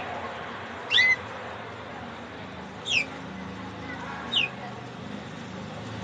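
Canary giving short calls, each a quick whistled note sliding down in pitch. There are three of them: about a second in, at about three seconds, and at about four and a half seconds.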